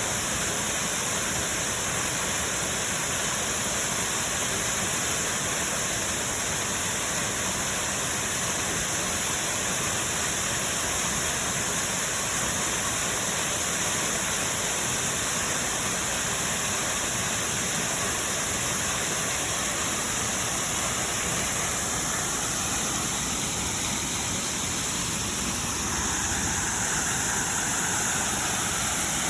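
Waterfall heard from its base: a steady, even rush of falling water.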